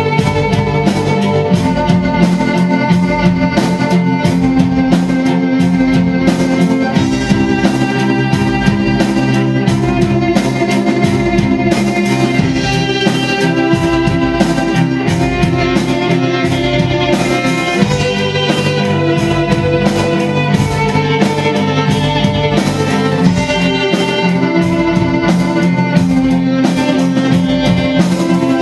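Symphonic rock music: bowed strings playing sustained chords over a steady drum beat, with the harmony shifting every several seconds.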